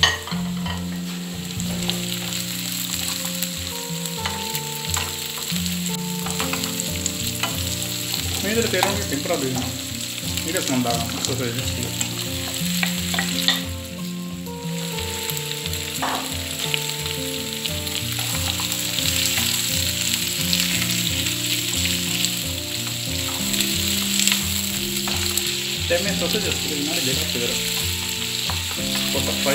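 Sliced onions and green chillies sizzling steadily in hot oil in a nonstick frying pan, stirred with a wooden spoon, with small scrapes and clicks of the spoon. From about halfway on, sliced sausages are frying in the pan with them, after a brief dip in the sizzle.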